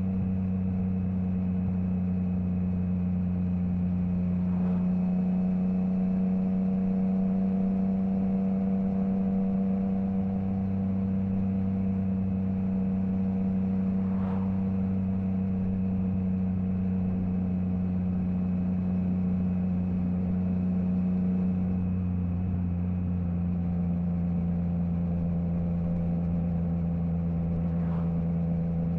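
Triumph Trident 660's inline three-cylinder engine through a Zard stainless full exhaust with the baffle removed, running at a steady, nearly constant engine speed with no gear changes.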